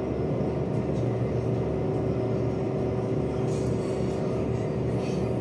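A steady machine hum with a constant mid-pitched tone over a low drone, unchanging throughout.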